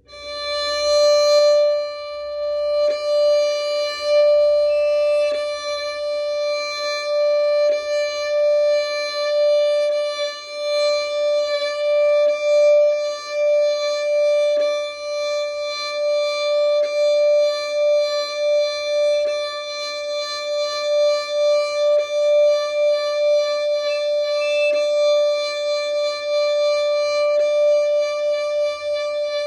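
Violin sounding one sustained bowed note that swells and eases again and again as weight is pressed into the string and released, the pulses per bow stroke growing more frequent. This is a bow-weight exercise for tone production, and the pitch shifts a little each time weight is added.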